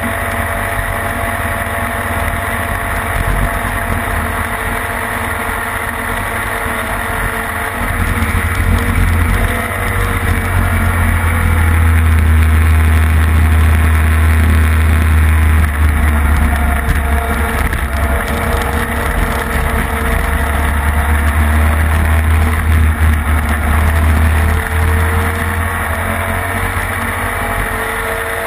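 Classic racing sidecar outfit's engine running at race speed, its pitch rising and falling through the gears. Heavy wind rumble on the onboard microphone, strongest through the middle of the stretch.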